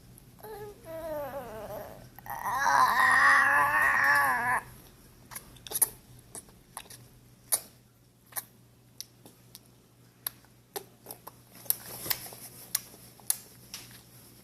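Baby vocalising: a brief wavering coo, then a louder drawn-out squeal with wobbling pitch. After that comes a string of sharp tongue clicks from the baby's mouth, roughly one or two a second.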